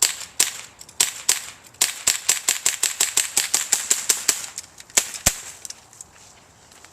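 CO2-powered BB revolver firing a string of sharp, pretty loud cracks: a few single shots, then a quick run of about four a second, then two more near the end.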